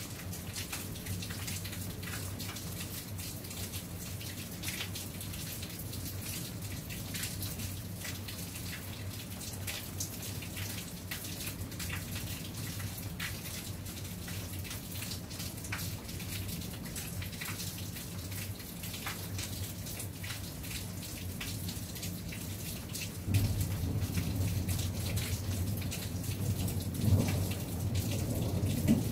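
Steady rain with many single drops tapping close by. A low rumble of thunder comes in about three-quarters of the way through and grows louder toward the end.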